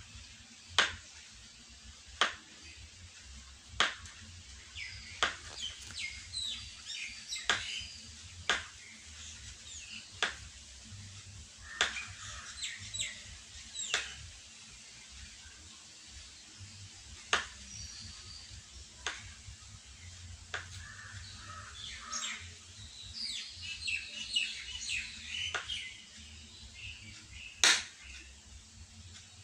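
Knife cutting bananas into slices, each cut ending in a sharp tap, about one every one to two seconds. Birds chirp in the background.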